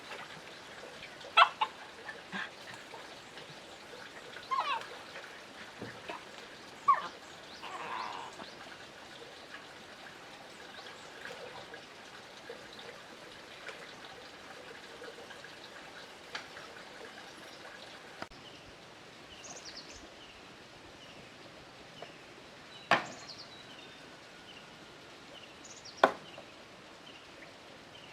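Outdoor ambience with a bird calling in short, repeated falling chirps through the second half. A handful of sharp knocks or clicks stand out as the loudest sounds.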